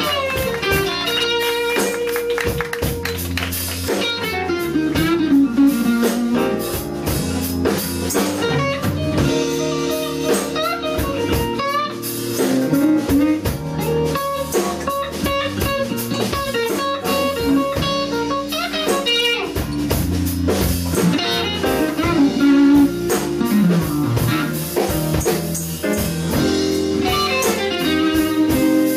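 Live blues band playing an instrumental, an electric guitar leading with bent notes over drums.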